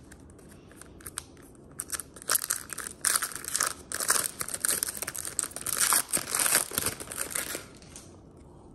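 Crinkling and tearing of a Panini Recon basketball card pack's wrapper being torn open by hand, a dense crackle that starts about two seconds in and stops about a second before the end.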